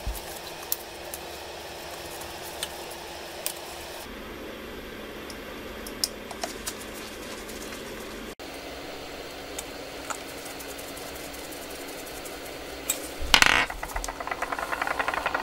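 Small taps and clicks as gloved hands handle an iPhone and a precision screwdriver, scattered over a steady hiss. Near the end comes a loud knock, then a fast, even rattling buzz.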